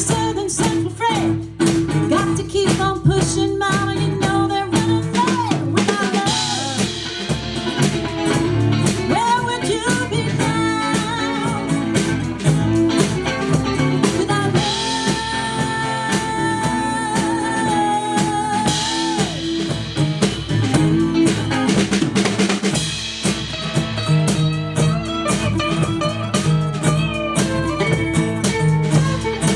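A live band plays a song on full drum kit, with snare rimshots and bass drum under bass and guitar. A melody line winds through the mix and holds one long note about halfway.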